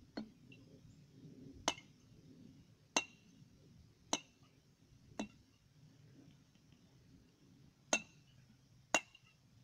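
Mallet striking the mouth of a water-filled 4 oz glass bottle, seven sharp knocks with a short glassy ring, about a second apart with a longer pause midway. It is the bottle-breaking water-pressure trick, and the bottle holds without breaking.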